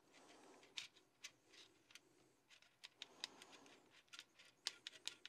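Faint, irregular small clicks and ticks of metal gun parts being handled as a retaining pin is pushed out of a part of a Smith & Wesson FPC carbine.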